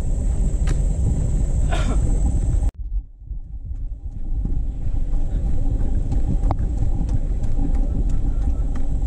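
Wind buffeting a GoPro Hero5's microphone while running, a steady low rumble. It drops out abruptly for about a second just under three seconds in, then builds back up.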